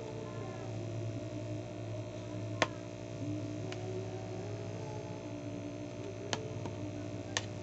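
A metal spoon clinking against a ceramic plate a few times while eating, sharp single clicks with the loudest a little over two seconds in, over a steady low hum.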